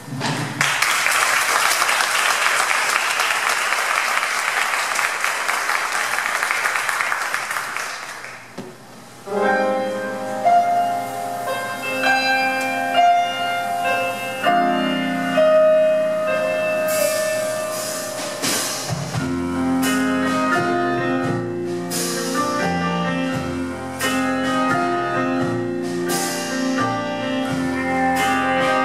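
Audience applauding for about eight seconds, then live band music starting with piano alone. Double bass and drums with cymbal strokes join about ten seconds later.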